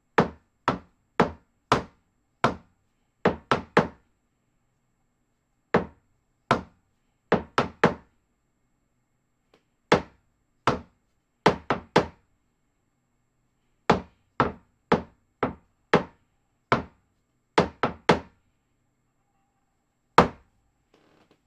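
Bass drum mallets striking a drum in the rhythm of a drum-corps bass part: short, sharp, dry knocks, with single strokes and quick runs of two or three separated by rests. The last stroke falls about a second before the end, followed by a faint rustle.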